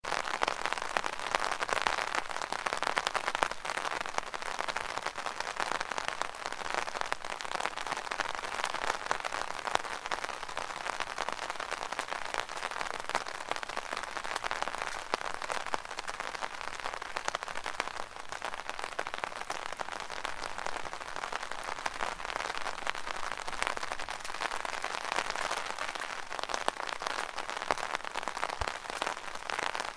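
Steady rain drumming on an open umbrella: a dense patter of many small drop hits, even throughout.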